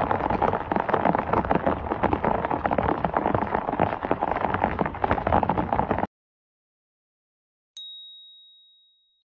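Heavy rain pouring down over water running across flooded ground, which cuts off abruptly about six seconds in. After a moment of silence, a single bright chime sound effect rings out and fades over about a second and a half.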